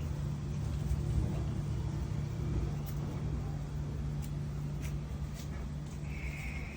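A steady low mechanical hum, like an engine running, with a few faint clicks and a short high-pitched tone near the end.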